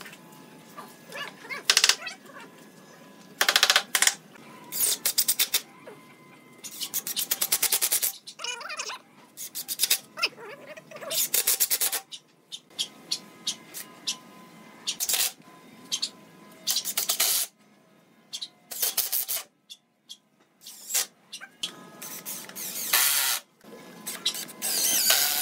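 Cordless Makita impact driver driving screws into pallet-wood slats in a string of short bursts, each a rapid rattle of blows, with pauses between the screws.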